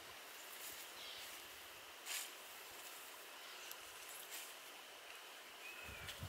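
Quiet woodland ambience with a few faint rustles and snaps, the loudest about two seconds in. A short high chirp and some low bumps come near the end.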